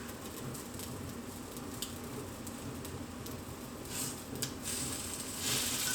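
French toast sizzling in a frying pan, a steady hiss with a few light clicks of a utensil, swelling louder about four seconds in and again near the end.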